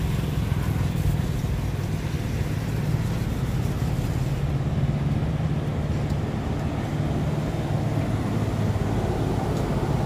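A steady low mechanical hum, like a motor running, over outdoor street noise.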